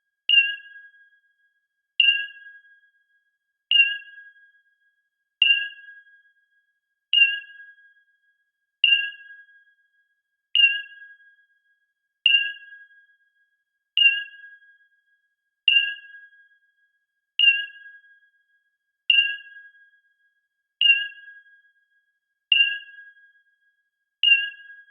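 Sonar/radar screen beep sound effect: a short electronic ping repeating evenly about every 1.7 seconds, each one starting sharply with a higher wavering tone over a lower steady tone that fades away.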